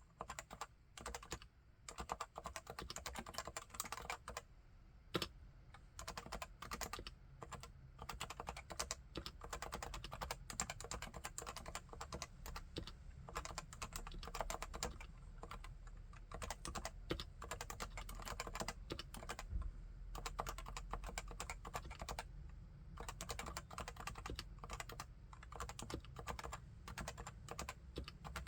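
Typing on a Leopold FC980C keyboard with 45 g Topre electrostatic capacitive switches: fast, continuous keystrokes, with a couple of short pauses and a few louder strokes in the first several seconds.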